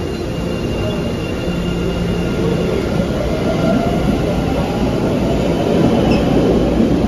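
MBTA Orange Line subway train (new CRRC-built cars) in an underground station, standing and then pulling out, its rumble of motors and wheels growing louder near the end.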